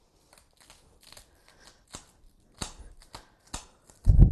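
A small knife slicing through spring onions onto a wooden cutting board, making a run of crisp, uneven cuts a few times a second. A louder, dull thump comes near the end.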